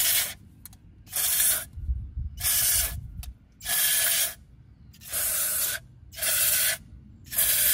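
Aerosol spray can with a straw nozzle fired in seven short hissing bursts, about one a second, into the electric motor of a boat's trim/tilt pump.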